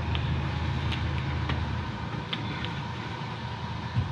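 Twin inboard diesel engines of a Leopard 45 catamaran idling as they are shut down after anchoring; the engine note drops about halfway through as one engine stops, leaving the other idling more quietly. A few light clicks sound over it.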